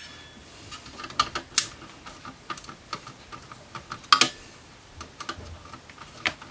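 Screwdriver taking screws out of the back panel of a digital video recorder's metal case: irregular light metallic clicks and taps, with a few sharper knocks, one near the start, one at about a second and a half and one at about four seconds.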